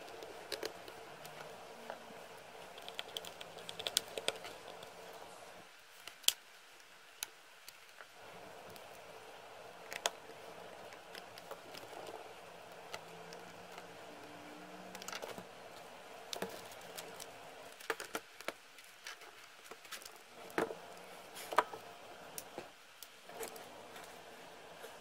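Scattered light clicks and ticks of a small screwdriver turning screws into a laptop's plastic bottom case, with the case being handled.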